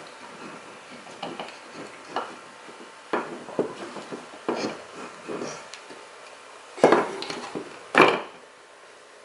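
Scattered clicks and knocks of small metal and plastic parts as a VW O2J shifter assembly is pried apart by hand to free its spring and arm, with two sharper clacks near the end.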